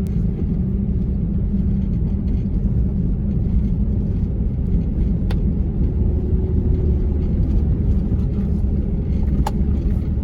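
Steady engine and road rumble heard inside the cabin of a four-wheel-drive vehicle driving on a wet road, with a couple of brief clicks.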